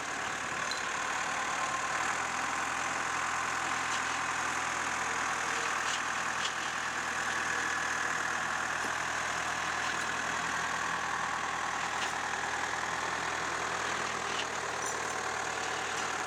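An engine idling steadily, with a few faint ticks.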